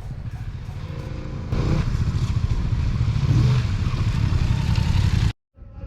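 Motorcycle engine running on the move, heard through an action camera's microphone with wind noise over it; it gets louder about a second and a half in and cuts off abruptly near the end.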